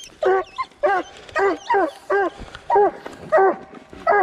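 Coonhound barking at a tree in a steady run of short chop barks, about two a second: the hound has a raccoon treed.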